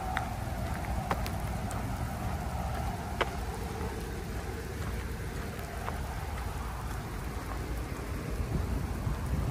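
Steady rushing noise from a moving camera: wind buffeting the microphone and tyres rolling over rough, freshly laid asphalt, with a few scattered sharp ticks.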